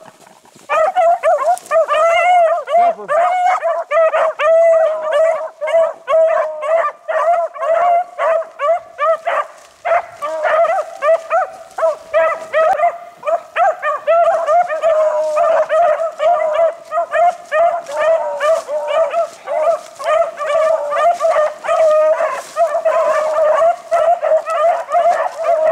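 A pack of beagles baying together on a rabbit track, several hound voices overlapping in quick, continuous bawls. The chorus starts about a second in.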